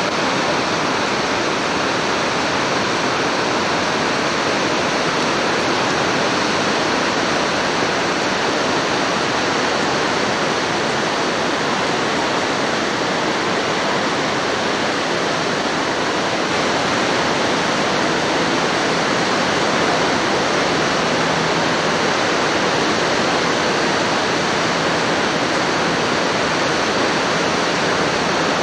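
Steady, unbroken rush of the Niagara River's white-water rapids, heard through a 1980s VHS camcorder's built-in microphone.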